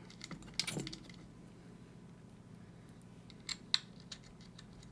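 Small metal clicks and taps of the parts of a Mul-T-Lock-style lock being lined up and fitted back together: a short run of clicks under a second in, then two sharp clicks about three and a half seconds in.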